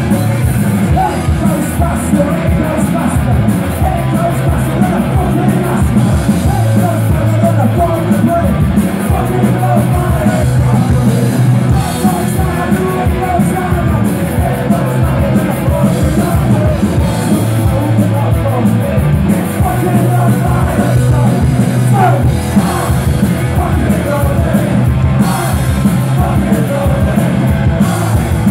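Punk rock band playing live at full volume: electric guitars and bass over steady drum hits, with a singer's vocals on top.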